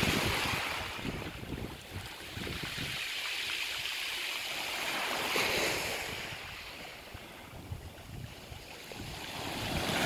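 Small Mediterranean waves washing onto a pebble beach, with wind buffeting the microphone in the first few seconds. The surf swells about five seconds in, dies down, then builds again near the end as a wave breaks on the shore.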